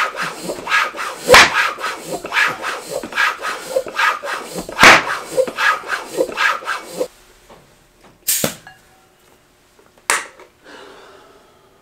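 A floor pump is worked in steady strokes, about one and a half a second, inflating a mountain bike tire whose bead is lubricated with soapy water. Twice, about a second and a half in and again near five seconds, there is a loud sharp pop as the tire bead snaps into its seat on the rim. After the pumping stops come a short hiss and then one sharp knock near the end.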